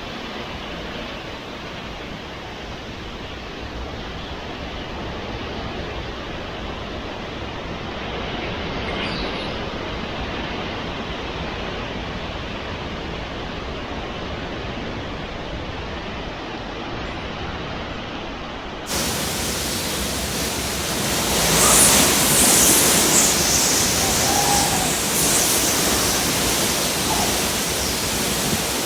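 Hurricane-force wind and rain blowing steadily outdoors. About two-thirds of the way through it cuts to a louder, hissier stretch of wind and rain.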